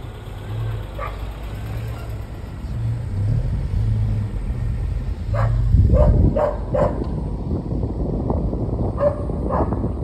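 A car drives along a road with a steady low engine and tyre rumble. A dog barks several times in quick succession about halfway through, and twice more near the end.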